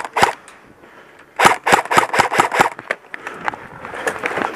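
Airsoft rifle fire: two single shots at the start, then a rapid string of about eight shots about a second and a half in, some six a second.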